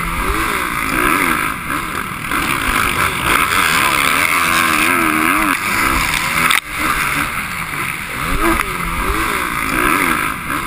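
Dirt bike engine revving up and down again and again as the throttle opens and closes, with a steady rush of noise over the helmet-mounted microphone. The sound breaks off for an instant about two-thirds of the way through.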